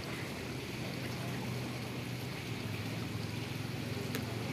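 Steady background noise with a faint low hum, even throughout.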